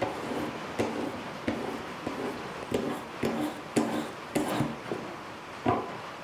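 Short, regular scraping strokes of a 600-grit sharpening stone on a guided-rod knife sharpener, drawn along a steel knife blade about one and a half times a second, stopping shortly before the end.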